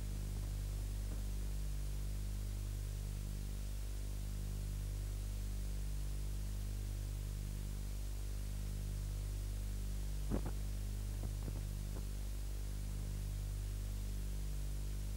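Steady electrical hum with hiss on an old videotape's audio track, with a brief faint click about ten seconds in.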